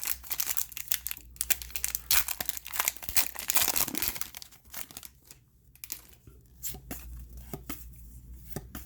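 A trading card pack's wrapper being torn and crinkled open and the cards handled: a dense run of crackly rustling for about the first four and a half seconds, then fainter, sparse rustles and clicks.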